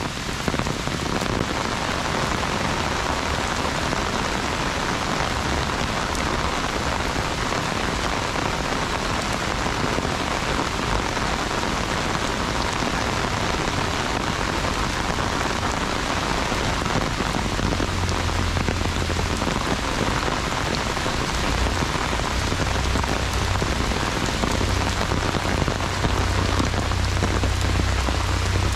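Heavy rain falling on an umbrella overhead: a dense, steady hiss of drops. A low rumble joins in about two-thirds of the way through.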